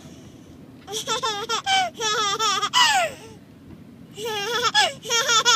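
A baby laughing in two bouts of high-pitched, rippling laughter, the first lasting about two seconds, the second starting near the end. A low, steady rumble of car road noise sits underneath.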